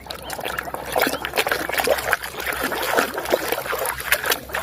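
Water trickling and splashing in quick, irregular spatters as a muddy toy vehicle is rinsed clean.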